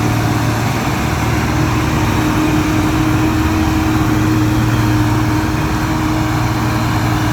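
John Deere 4240 tractor driving a forage blower while the last load of chopped rye is blown into the silo. The engine and blower run at a steady drone with a steady hum throughout.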